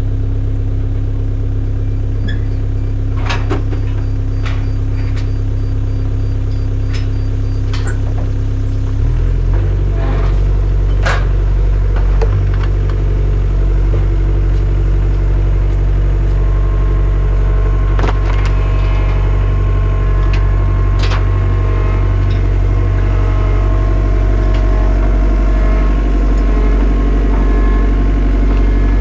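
A large engine running steadily, stepping up in pitch and level about nine seconds in as it is throttled up or takes on load, with a few sharp clicks and knocks over it.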